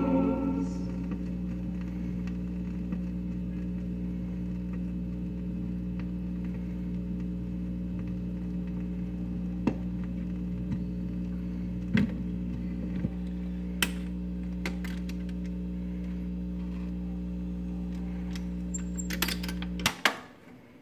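Magnavox record player humming steadily through its speaker as the stylus runs in the run-out groove, with a few scattered clicks, after the last of the music fades in the first second. Near the end the automatic changer clicks and clunks as the tonearm lifts and swings back, and the hum cuts off suddenly as the player shuts off.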